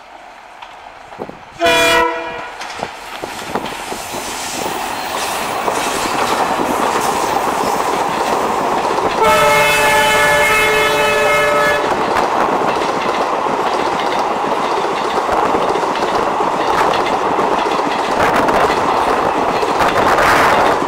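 A WDP4D diesel locomotive hauling an express passenger train at speed: a short horn blast about two seconds in, then the noise of the train rises as it closes in, and a longer horn blast of about two and a half seconds comes about nine seconds in. The coaches' wheels then clatter past steadily over the rail joints.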